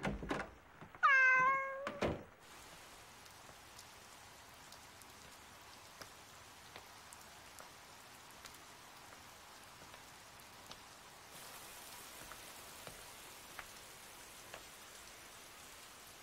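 A cat meows once, a drawn-out call about a second in. Then steady rain falls with scattered drip ticks, growing slightly louder about eleven seconds in.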